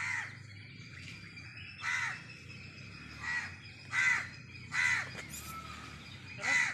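A bird calling repeatedly: six short calls about a second apart.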